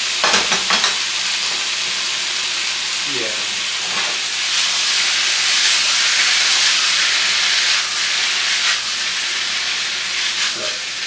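Chicken and vegetable stir fry sizzling steadily in a hot pan, with a few short clicks of a utensil against the pan near the start and once or twice later.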